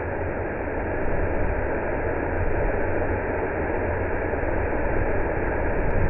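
Waterfall pouring into a plunge pool: a steady, loud rush of falling water with a deep rumble underneath.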